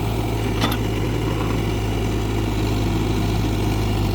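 Heavy diesel engine of earth-moving machinery running steadily with a low drone, and a brief sharp knock a little over half a second in.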